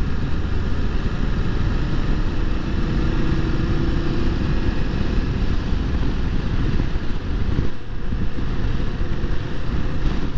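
BMW F750 GS parallel-twin engine running at a steady cruise with wind rushing over the microphone, the sound dipping briefly about three quarters of the way in.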